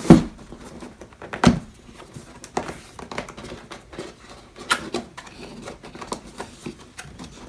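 Cardboard keyboard box being handled and worked at by hand: a loud thump right at the start and another about a second and a half in, then scattered light knocks, taps and rubbing.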